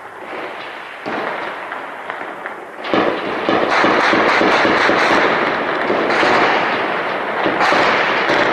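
Heavy gunfire: a dense crackle of many shots running together, becoming much louder and thicker about three seconds in and staying intense.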